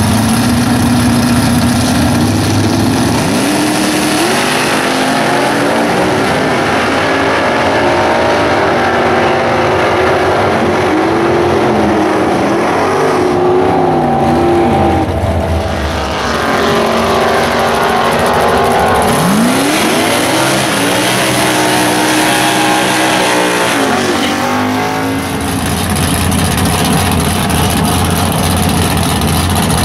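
Small-block Mopar V8 of a Plymouth Duster drag car, fitted with W7 heads: it idles, then runs at full throttle, its pitch climbing in steps through the gear changes. A second full-throttle pull climbs the same way midway through, and near the end the engine is idling again.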